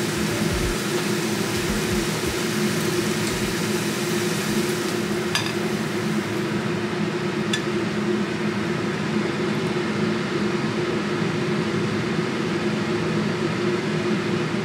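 A steady whirring hum with an even hiss, like a kitchen appliance fan running, with a couple of faint clicks of metal tongs against a ceramic bowl partway through.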